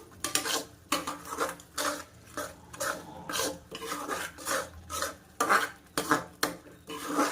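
A cooking spoon stirring thick onion-tomato masala with ginger-garlic paste in a pan, scraping and clinking against the pan in repeated strokes about two to three times a second.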